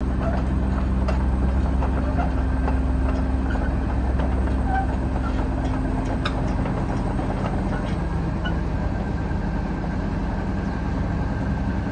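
Wirtgen W210 cold milling machine's twin Cummins QSL9 diesel engines running steadily as the machine drives on its crawler tracks, with a few faint clicks over the engine note.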